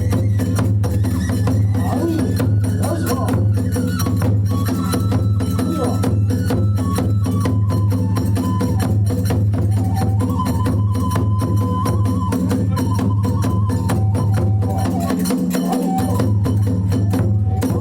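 Kagura hayashi ensemble playing a fast dance accompaniment: rapid, continuous strokes of drums and clashing tebyoshi hand cymbals under a held, stepping melody on the fue bamboo flute.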